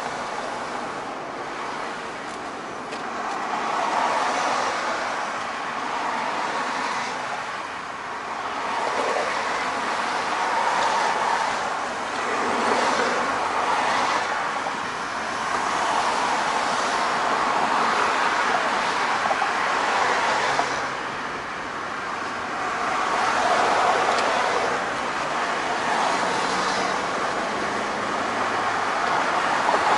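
Road noise of a car driving at freeway speed, heard from inside the cabin: steady tyre and wind noise that swells and eases every few seconds.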